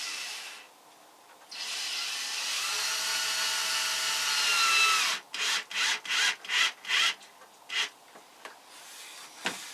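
A small power tool runs, stops for about a second, then runs again for several seconds with a faint rising whine. It is followed by a run of quick scraping strokes on wood, about three a second.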